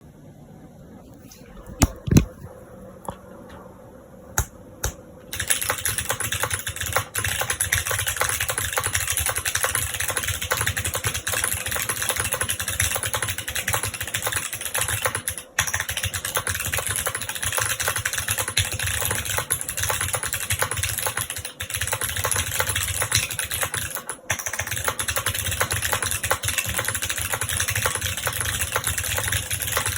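Mechanical keyboard with stock Kailh Box Jade clicky switches in a PC plate with no foam, under GMK keycaps, being typed on. A few single key presses come first, then about five seconds in fast continuous typing with sharp clicks begins, pausing briefly twice.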